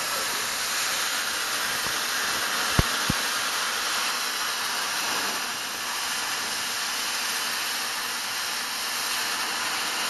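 Oxy-fuel cutting torch hissing steadily with its cutting-oxygen trigger held, blowing molten steel out of a 1/8-inch steel plate. Two sharp pops come close together about three seconds in.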